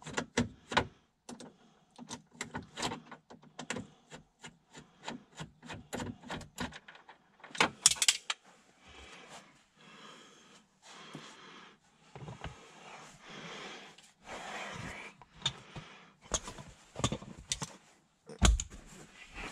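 Plastic dash trim and loose screws clicking and rattling as screws are backed out with a Phillips screwdriver and a trim panel is worked loose: a run of quick clicks, a louder clatter about eight seconds in, then scraping and rustling.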